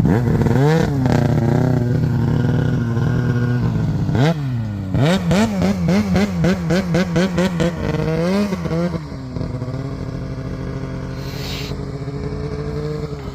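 Snowmobile two-stroke engine under throttle: it revs up, dips and climbs again, then its speed rises and falls rapidly several times a second for a few seconds before it settles into a steadier, quieter run with slowly climbing pitch.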